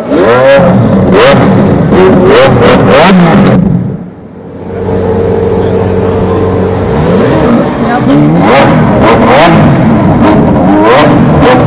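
Lamborghini Centenario Roadster's naturally aspirated V12 revved while standing, in a series of quick rising blips with sharp exhaust cracks. About four seconds in the revs drop and it idles steadily for a few seconds, then more rising blips and cracks follow.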